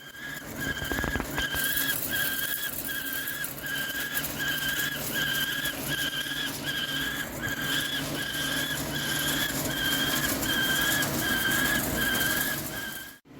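Hankook PROTEC-9NC heavy CNC lathe turning a steel forging: a high whine from the cut pulses about one and a half times a second over a steady hiss and low machine hum.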